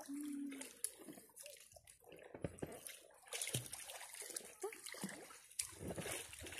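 Sea water sloshing and lapping close to the microphone around people standing and wading in it, with small irregular splashes.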